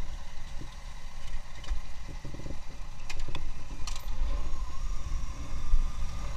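Motorcycle engines running at low speed as the bikes ride off, with a steady low rumble.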